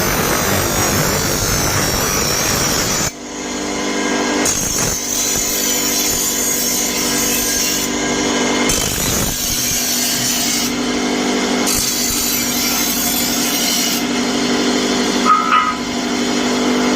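Power tool grinding the metal of a forage-cutter blade: a harsh rasping grind, which cuts away about three seconds in to leave the machine running with a steady hum, the grinding coming back in patches.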